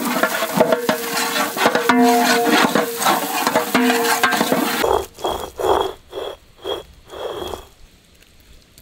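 Green chillies frying in hot oil: a loud, dense crackling sizzle that stops abruptly about five seconds in. A few quieter, evenly spaced swishing strokes follow.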